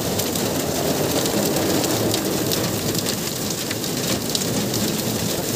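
Heavy rain mixed with hail pelting a vehicle's roof and windows, heard from inside the cabin: a steady, dense patter with many sharp ticks of stones striking.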